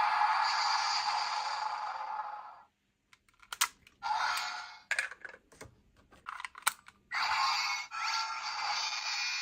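Electronic sound effects from a toy transformation device's small speaker. A noisy effect cuts off about two and a half seconds in, a handful of sharp plastic clicks follow, and a new effect starts near the end.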